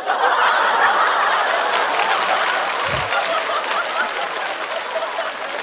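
Studio audience laughing and applauding after a punchline, loudest at the start and slowly dying down. A soft low thump about three seconds in.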